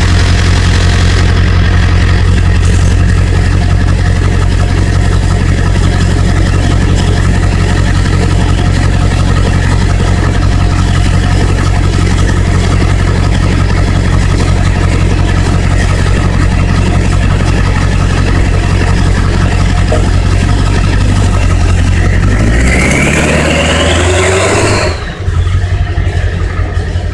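Ford 7.3L Powerstroke turbodiesel V8 running steadily at idle, heard at the exhaust tip. About 22 seconds in, the engine is revved, rising in pitch for about two seconds before dropping back.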